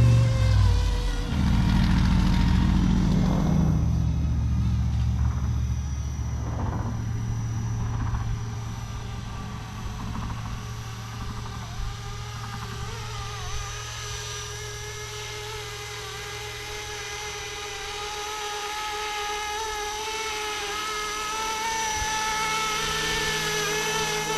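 450-size RC scale helicopter in flight: its motor and rotor whine, with the pitch wandering a little. A low rumble in the first few seconds dies away, the whine grows fainter through the middle, and it gets louder again near the end.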